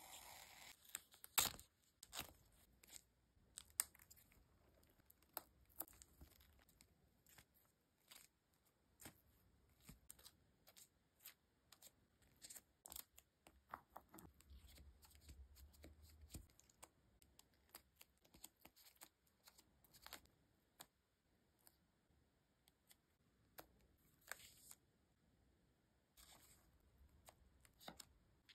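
Close-up handling of tape-covered paper cutouts: scattered, irregular crinkles, clicks and peeling-tearing sounds as the pieces are pressed, smoothed and lifted. The loudest crackle comes about a second and a half in.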